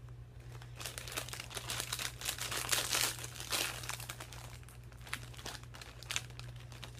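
Crinkly plastic bag of Yokitos bacon-flavoured chips being handled and pulled open, a dense run of crackling that is loudest about three seconds in.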